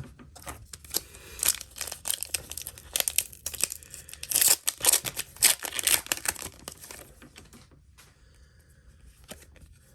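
Foil booster pack wrapper being torn open and crinkled by hand: a rapid run of crackles, loudest about four to six seconds in, dying away after about seven seconds.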